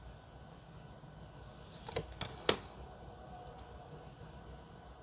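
Tarot cards handled in the hand as one card is moved off the front of the deck: a brief swish and a few light clicks and snaps about two seconds in, the last the loudest, over faint room tone.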